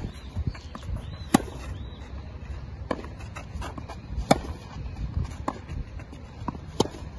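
Tennis ball struck by rackets in a baseline rally on a clay court: sharp hits at a steady rally pace, the three loudest from the near player's racket and fainter ones from the far end of the court, over a low rumble.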